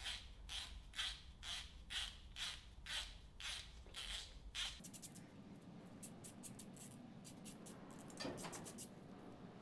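Hand ratchet with an 11 mm 12-point socket clicking in steady strokes about two a second as it winds down connecting-rod cap bolts. About five seconds in the clicks come quicker and lighter.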